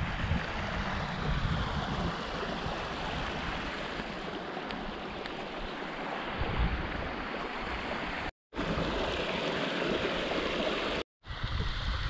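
Shallow mountain stream running over rocks, an even rushing, with an unsteady low rumble of wind on the microphone. The sound cuts out briefly twice, about two-thirds of the way in and again near the end.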